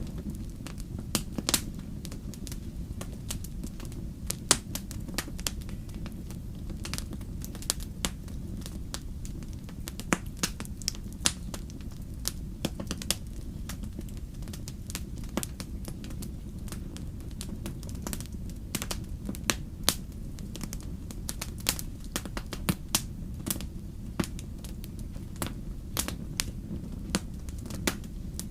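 Campfire crackling: a steady low rumble of burning wood with frequent sharp, irregular pops and snaps of the logs.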